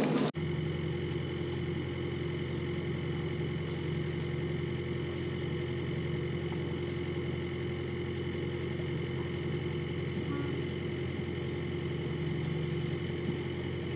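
Amel Santorin 46 sailing yacht's inboard engine running steadily under way, a constant hum with several steady tones.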